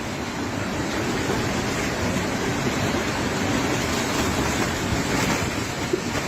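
Strong wind rushing steadily and buffeting the microphone.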